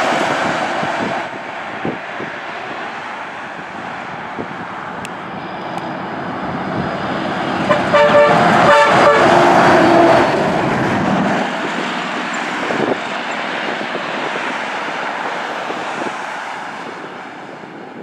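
Tractor-trailers driving past. About eight seconds in, a truck's air horn sounds a quick series of short blasts and then a held note, as a long-hood Kenworth W900 semi goes by.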